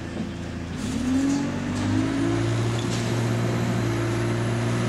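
Bus engine heard from inside the passenger saloon, pulling the bus away: about a second in it grows louder and its note rises, then holds steady as it keeps driving.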